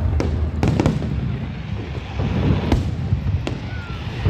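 Fireworks bursting overhead: a quick cluster of sharp bangs about half a second in, then single bangs past the middle and near the end, over a steady low rumble.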